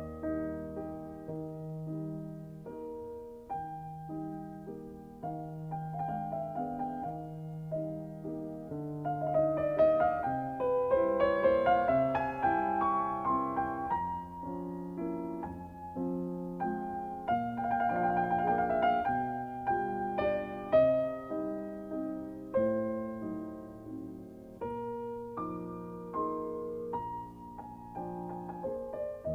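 Background piano music, a gentle melody of many notes over a steady lower accompaniment.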